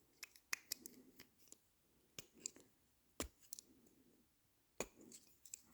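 Faint, irregular clicks and light scraping of a small flat screwdriver working against the plastic and metal parts of a uPVC flag hinge, prying the white plastic collar out.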